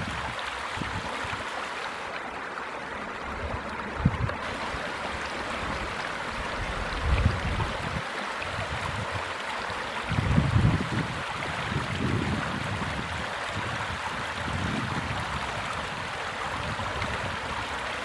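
Shallow creek water rushing and splashing over stones where it pours out of a culvert pipe, a steady rush. A few low rumbles of wind on the microphone come and go, about four, seven and ten seconds in.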